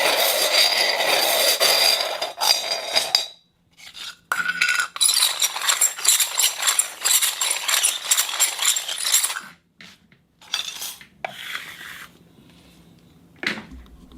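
A hard object scraped and dragged across a concrete floor: a long scrape at the start, a second long scrape lasting about five seconds, then a few short scrapes near the end.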